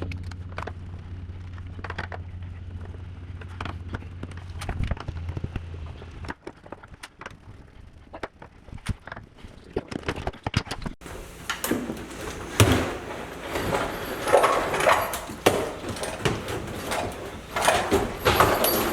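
Knocks, clicks and scraping from a built-in Bosch dishwasher being worked loose and pulled out of its kitchen cabinet. The handling gets louder and busier from about halfway through.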